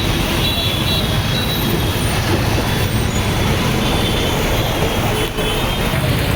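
Road traffic in a jam: engines of buses and other vehicles running, a steady low rumble with no break.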